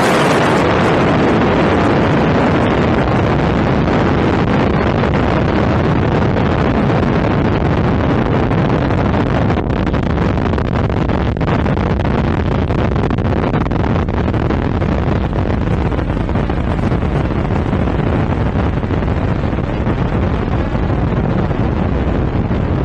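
Explosion sound effect in its long rumbling aftermath: a loud, steady roar of noise that dulls slightly in the first second or two and then holds.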